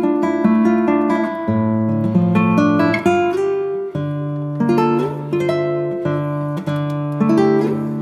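Background music: an acoustic guitar playing a steady run of plucked notes and chords.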